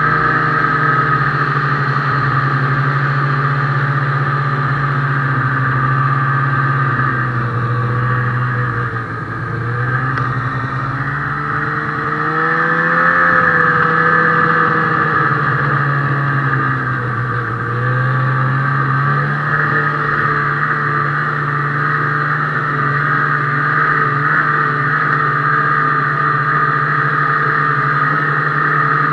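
Ski-Doo snowmobile engine running under way. The engine note drops and picks up again a few times as the throttle eases off and opens.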